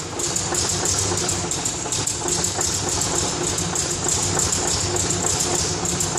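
The 1980 Scania 141's V8 diesel engine running steadily at idle, just restarted after a year and a half out of use.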